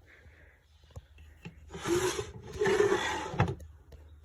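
Nightstand drawer with no runners or tracks sliding directly on the cabinet frame, giving two loud scrapes about a second apart, the second one longer. It is an awfully loud drawer because it has no tracks and just sits in its opening.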